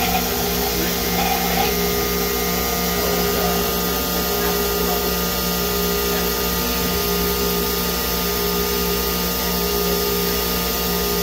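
OKK VP400 5-axis vertical machining center running: a steady mechanical hum with several steady tones, while the trunnion table tilts the workpiece under the spindle.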